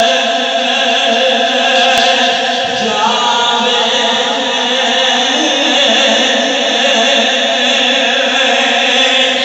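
A man's voice chanting an Islamic devotional poem (naat) in long held notes, amplified through a microphone and loudspeakers.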